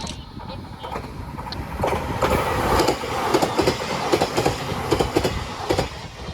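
E721-series electric train passing over the crossing, its wheels clattering over the rail joints in a run of clicks over a steady rumble, louder from about two seconds in.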